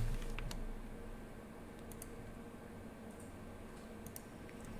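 Faint clicks of a computer keyboard and mouse over quiet room tone with a steady low hum: a few keystrokes right at the start, then single clicks about two and four seconds in.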